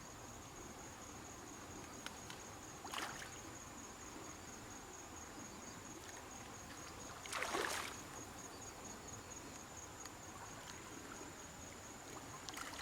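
Steady high-pitched insect trill with a fast, even pulse over the low rush of flood-swollen river water. Short splashy swishes break in about 3 and 7.5 seconds in, and again near the end.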